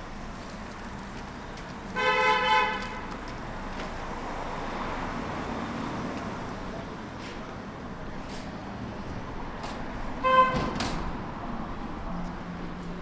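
A vehicle horn honks twice over steady street traffic noise: a honk of just under a second about two seconds in, and a shorter, louder one about ten seconds in.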